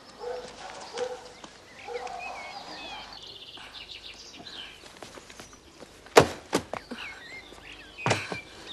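Birds chirping outdoors, with light scuffs and two loud thumps in the second half, as a person clambers on a brick wall and jumps down from it.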